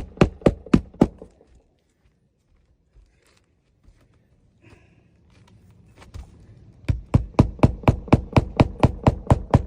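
Hammer driving a nail into a roof shingle: quick, sharp blows about four a second that stop about a second in, then start again, faster, about seven seconds in.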